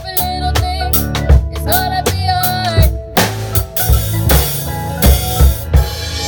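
A live band playing a cover song: a drum kit keeps a steady beat over a bass line, with a held melody line that wavers in pitch.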